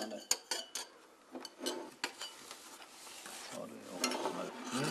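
Cups, saucers and spoons clinking on a table as cake and coffee are served: a few sharp clinks in the first second, then softer clatter of tableware being handled.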